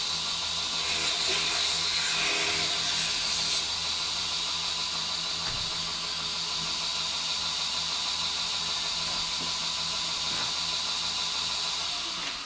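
Electric grinder running steadily, a constant motor hum under a hissing grind as it takes the edges off a piece of animal horn. The grind is harsher for the first three or four seconds.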